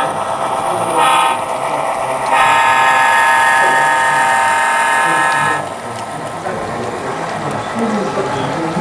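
Sound-fitted model locomotive playing a train sound through its small speaker: a steady, buzzy pitched tone that changes briefly about a second in, resumes, then cuts off at about five and a half seconds, leaving background hall noise.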